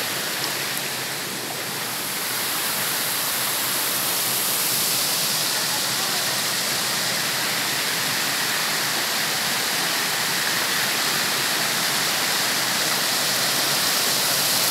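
White water rushing down a stepped rock cascade: a steady, even hiss that grows slightly louder toward the end.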